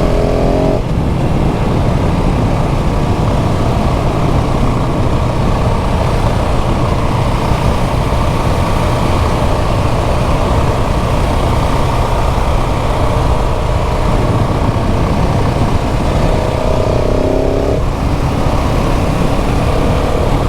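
KTM 690 SMC R's single-cylinder LC4 engine running under way, mixed with heavy wind noise on the microphone. Its pitch climbs under acceleration right at the start and again about three seconds before the end.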